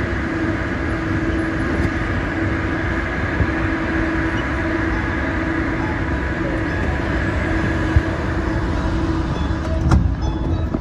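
Steady hum and rush of a Siemens-built Guangzhou Metro Line 1 train standing at a station with its doors open, with a constant low tone. A single sharp knock about ten seconds in.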